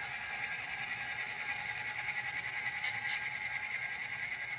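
HO scale model freight train running past, a steady mechanical whir of the model locomotives' motors and gears with the wheels rolling on the track.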